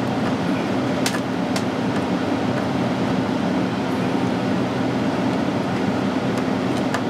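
Steady low mechanical hum, with a few light clicks about a second in and near the end as a screwdriver tightens the cable clamp onto the wire in a ceiling electrical box.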